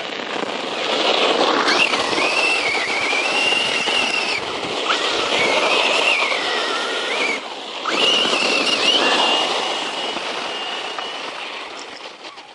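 Circuit Thrash 1/10-scale RC truck driven hard on its brushless motor: a high whine that rises and falls with the throttle over a rush of tyre noise as it power-slides. It eases off briefly about seven seconds in, picks up again, and fades near the end.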